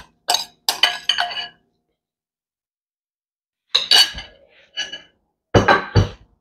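Metal spoon clinking against a glass mixing bowl: a few quick clinks at the start, then more clinks and knocks about four and six seconds in, with quiet gaps between.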